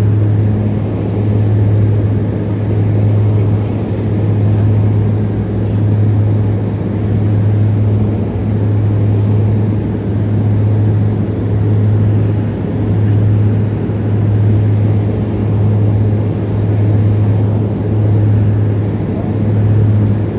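Cabin noise of a Harbin Y-12E twin-turboprop on descent: a steady low propeller drone over a rushing noise, swelling and fading about every one and a half seconds, the beat of the two propellers turning slightly out of step.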